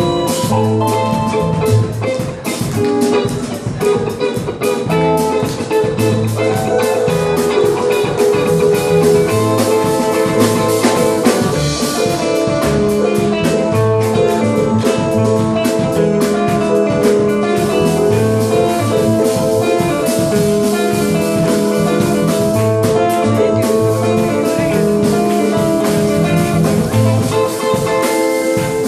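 Live band playing a reggae rhythm on drum kit, electric guitar and keyboard, steadily.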